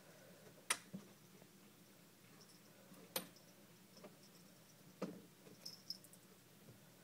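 Cat batting a closet light's hanging pull chain: a few faint, sharp clicks, the loudest about a second in, then others about three and five seconds in, with two smaller ticks soon after.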